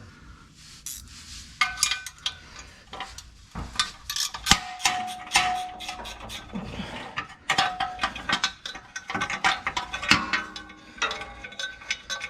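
Hand tools on the undercarriage bolts: a ratchet clicking, with sockets and metal hardware clinking and clanking in irregular bursts.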